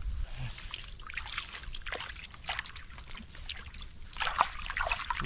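Hands sloshing and groping through shallow muddy water, making irregular small splashes and trickles that get busier about four seconds in.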